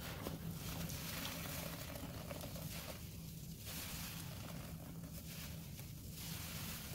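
Dense, soap-soaked sponges being squeezed in pine cleaner suds: wet squelching with the fizzing crackle of foam. It comes in repeated squeezes, with short lulls about three seconds in and again near the end.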